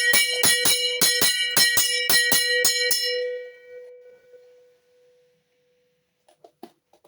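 A bell tuned to B4 rung rapidly, its clapper striking about five times a second. The strikes stop about three seconds in, and the note rings on and fades away over the next two seconds. A few faint clicks follow near the end.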